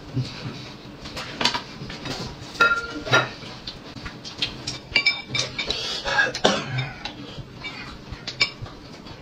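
Chopsticks and fingers handling food on porcelain plates and bowls: irregular light clinks and taps of tableware, mixed with the small sounds of people eating.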